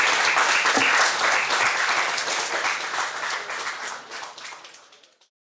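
Audience applauding, dense clapping that fades away and stops about five seconds in.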